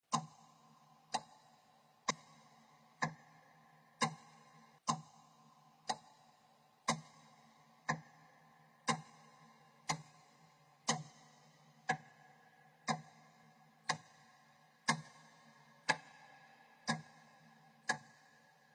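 A clock ticking steadily, about one tick a second, with a faint steady hum between the ticks.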